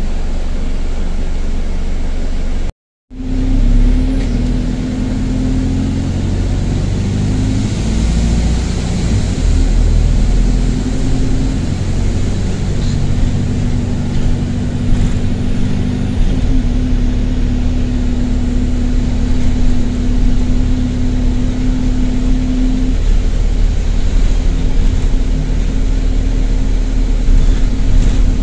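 A single-deck bus's diesel engine heard from inside the passenger cabin, pulling along under load with the noise of a burst turbo exhaust. The sound cuts out for a moment about three seconds in, then the engine drone comes back and holds steady.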